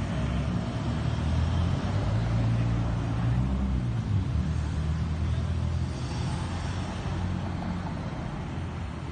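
Street traffic: car engines running low and steady as vehicles pass close by, loudest through the middle and easing toward the end.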